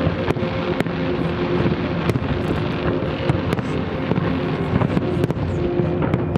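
Fireworks display: aerial shells bursting in an irregular string of about a dozen sharp bangs, over a continuous loud hum.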